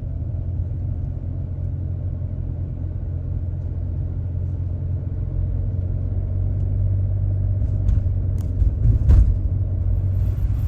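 Steady low rumble of a car driving at cruising speed, road and engine noise heard from inside the cabin, with a few short ticks and a bump about eight to nine seconds in.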